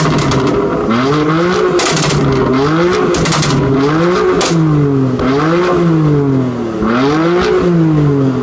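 BMW M4 Competition's 3.0-litre twin-turbo straight-six, through the M Performance exhaust, revved repeatedly: the pitch rises and falls five or six times. Clusters of crackles and pops come from the exhaust as the revs drop off.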